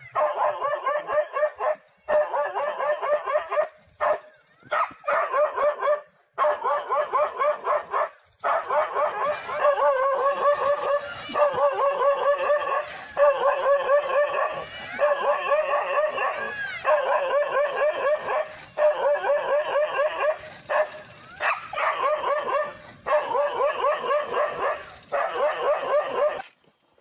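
Dogs barking in fast, continuous runs of sharp barks and yaps, broken by several short breaks.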